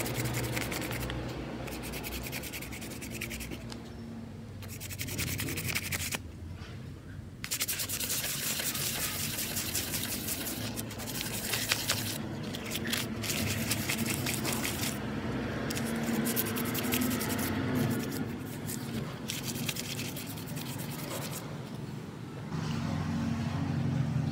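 Cloth rubbing a motorcycle's aluminium piston by hand with polishing paste, in steady rubbing strokes broken by a few short pauses. The factory coating is being polished off the piston.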